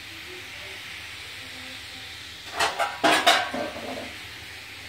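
Metal cookware clattering a few times, about two and a half to three and a half seconds in, as a cover is set over sweet potatoes on a griddle to steam them in their own moisture. A steady low hiss runs underneath.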